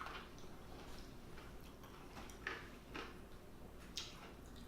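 Close-miked eating sounds of someone chewing steamed broccoli: a few short, soft mouth clicks, one at the start and several in the last couple of seconds.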